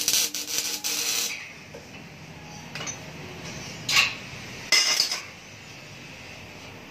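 Metal motorcycle exhaust pipes clanking and rattling against each other as they are handled in a pile: a busy cluster of clanks in the first second or so, then a few separate clanks around three, four and five seconds in.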